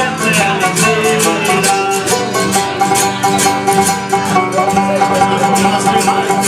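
Irish folk tune played instrumentally on banjo, acoustic guitar and accordion: the guitar strums a steady beat, the banjo picks along, and the accordion holds sustained notes.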